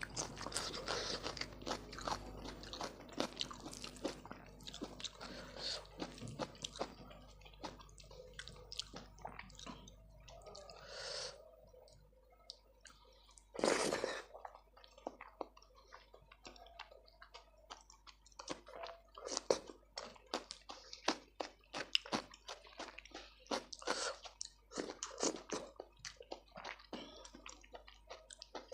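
A person chewing and biting mouthfuls of food, wet mouth clicks and smacks with some crunching, and one louder burst about 14 seconds in.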